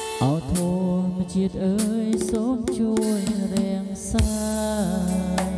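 Music: a lead melody whose notes slide and waver in pitch over a held low note, with occasional sharp percussive hits.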